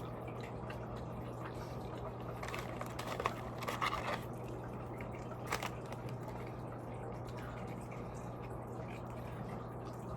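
Close-up eating sounds: chewing with a few short wet mouth clicks and squishes, over a steady low hum.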